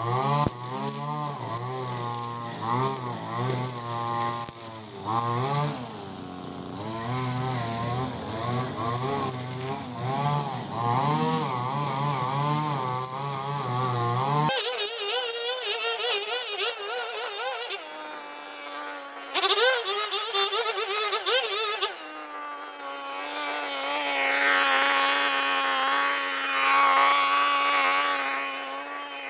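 Ogawa 26cc two-stroke brush cutter spinning a trimmer head with 2.2 mm line through thick, long grass, its revs rising and falling as it cuts. About halfway through the sound changes abruptly to a thinner engine note with no low end and a steadier pitch.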